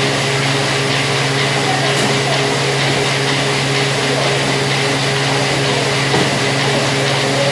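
Steady drone of factory machinery running: a low hum with a few steady whining tones above it, unchanging throughout.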